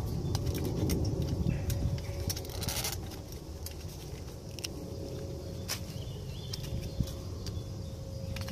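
Split wooden kindling being packed by hand into a stainless steel wood gas stove: sticks knocking and scraping against each other and the metal can, in scattered sharp clicks with a longer scrape about two and a half seconds in.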